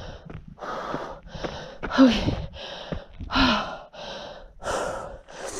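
A person panting hard from the exertion of a steep uphill climb, with quick heavy breaths about three every two seconds. Twice the breath comes out as a short falling groan.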